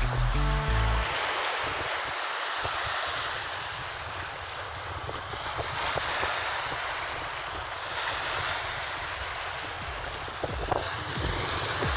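Waves washing onto a sandy shore, a steady rushing hiss, with wind buffeting the microphone. A music track cuts out about a second in.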